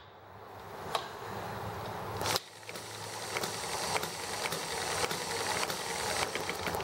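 A small ET1 model hit-and-miss gas engine running with a steady hum and faint, unevenly spaced ticks, while a hand handles its drive belt and flywheel. There is a click about a second in.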